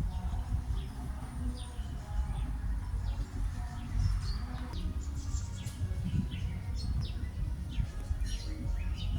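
Several wild birds chirping and calling in short, quick, falling notes, scattered throughout, over a steady low rumble.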